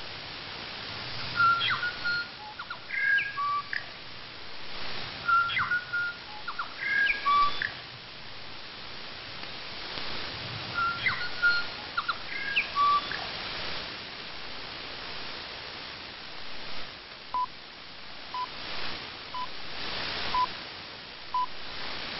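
Radio New Zealand International's interval signal, a recorded New Zealand bellbird call, received over shortwave: three repeated phrases of chiming, whistled notes over steady static hiss. Near the end come five short beeps a second apart, the start of the top-of-the-hour time pips.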